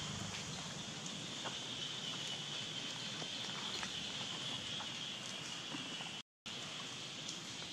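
Steady outdoor forest background: an even hiss with a constant high whine, dotted with faint small clicks and ticks. The sound cuts out for a moment about six seconds in.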